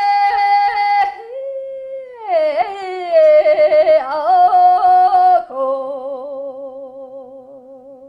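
A woman sings Mongolian long song (urtyn duu) unaccompanied. She holds high notes broken by quick ornamental flicks of pitch, then glides down and settles on a long, wavering note that fades toward the end.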